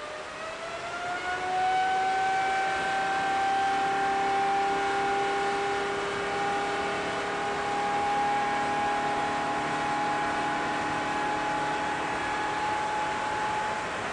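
GE90-115B high-bypass turbofan spooling up on a burst to takeoff thrust while ingesting a heavy water spray: its whine rises over the first couple of seconds, then holds steady at full power.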